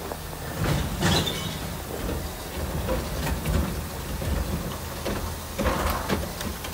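Natural-gas garbage truck's engine running at low speed as the truck creeps forward, with several metallic clanks and rattles from the body.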